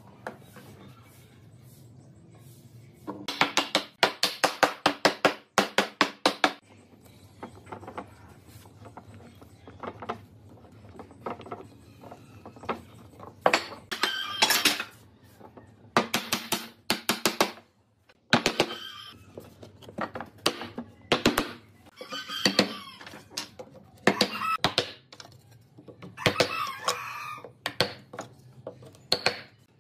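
Bursts of rapid hammer knocks on wood, several strikes a second with short pauses between, as wooden slats are driven into the mortises of a pine rail.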